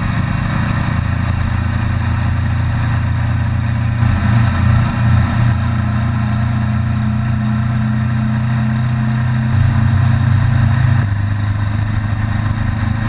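Motorcycle engine running while riding at road speed, with a steady rush of noise. The engine note wavers about four seconds in and shifts again around ten seconds in, as the throttle changes.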